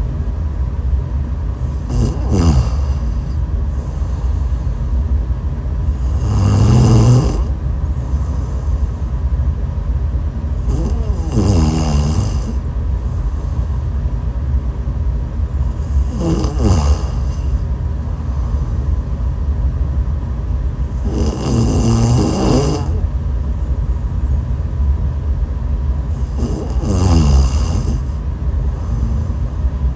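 A woman snoring in her sleep: six snores about five seconds apart, several of them sliding down in pitch, over a steady low rumble.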